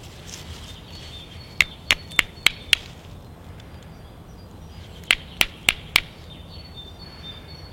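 A stone, taken for flint, struck against another stone: two quick runs of sharp, hard clacks, five and then four, at about three or four a second.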